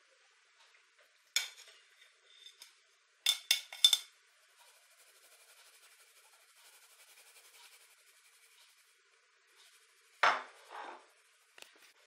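A metal mesh sieve clinking against a glass bowl, once and then in a quick cluster of three, followed by a faint steady rustle as flour and cocoa powder are shaken through the mesh, and two more knocks near the end.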